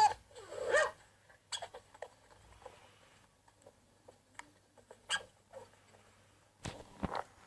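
Scattered soft clicks and pops of slime being handled, with a louder cluster of clicks near the end. A short pitched, voice-like sound is heard in the first second.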